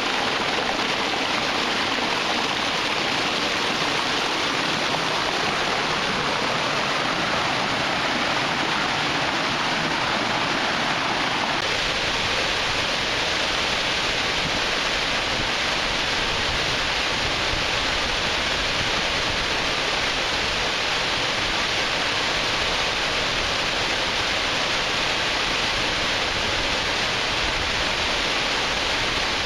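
Waterfall rushing steadily. First it is water pouring over a rock ledge up close; about twelve seconds in it changes to the deeper, fuller rush of a tall waterfall falling into a pool.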